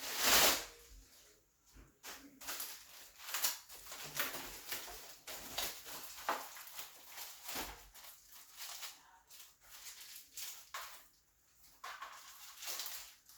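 Packaging being handled while unpacking: irregular rustling, crinkling and scraping, with a louder rustle at the start.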